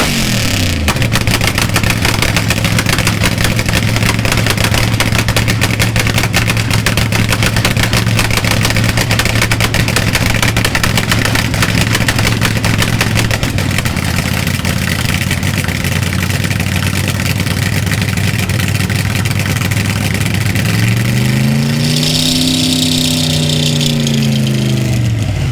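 Nitro-burning Hemi V8 of a rear-engine Dodge Dart funny car idling loudly with a rapid crackle, after a rev falls away about a second in. Near the end it revs up once and winds back down over a few seconds.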